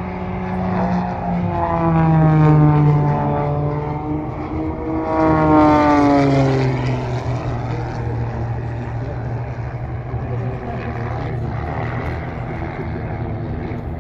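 Pitts Special aerobatic biplanes' propeller engines flying past, two passes about three seconds apart, each dropping in pitch as the plane goes by, then a steadier drone as they fly on.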